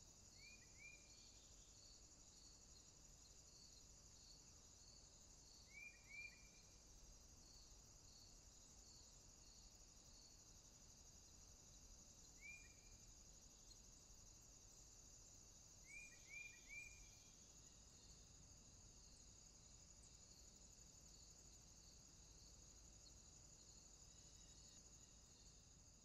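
Faint crickets trilling steadily, with an evenly pulsed chirp about one and a half times a second. A small bird gives short downward chirps in twos and threes a few times. The sound fades out at the very end.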